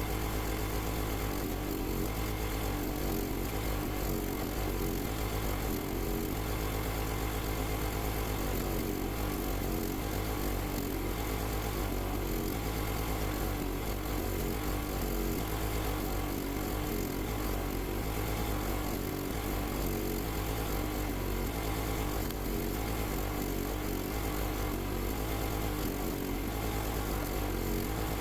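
Log splitter's small engine running steadily, an even unbroken drone.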